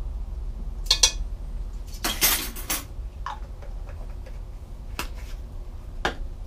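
Kitchen clatter of utensils, a pot and spice jars with their lids being handled. There is a sharp knock about a second in, a short rattle around two seconds, then a few lighter clicks.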